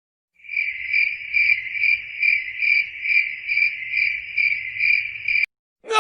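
Cricket chirping sound effect: a steady high trill pulsing about two to three times a second, which cuts off abruptly shortly before the end.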